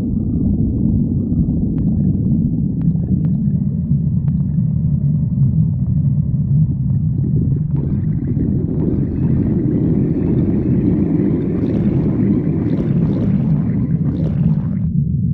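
Stomach growling: a continuous low rumble, with a higher, rougher layer joining about halfway and stopping suddenly near the end.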